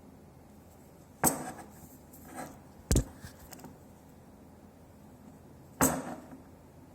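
Three sharp knocks, about a second and a half to three seconds apart, with a few fainter clicks between them.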